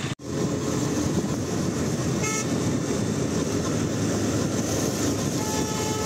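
Steady wind and road noise from riding a two-wheeler in highway traffic, with a vehicle horn tooting briefly about two seconds in and again, longer, near the end.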